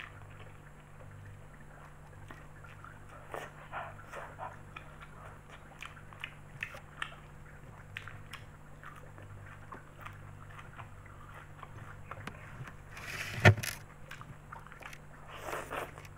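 Close-up eating sounds of spaghetti and raw kenikir leaves: wet chewing and small lip-smacking clicks throughout, with a loud noodle slurp ending in a sharp smack about 13 seconds in and another slurp near the end. A steady low hum runs underneath.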